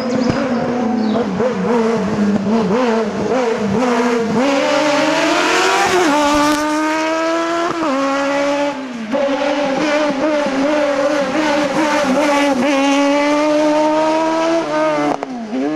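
Race car engine revving in short blips, then launching hard about four seconds in and accelerating through quick gear changes. It holds high revs as it pulls away and drops off near the end.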